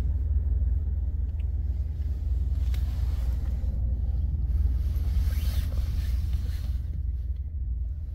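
Steady low rumble of a car's engine and tyres, heard from inside the cabin of a moving taxi, with a short rise of hiss about five seconds in.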